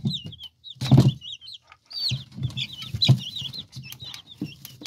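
Two-week-old chicks, ISA Browns and mixed colored-egg layers, peeping steadily with many short chirps. A sharp knock comes about a second in, with a few lighter ones later, over a low steady hum.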